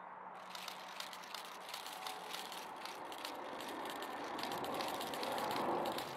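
US Air Force E-4B on landing approach: its four General Electric CF6-50 turbofans make a rushing jet noise with a rattling crackle, growing louder over the seconds.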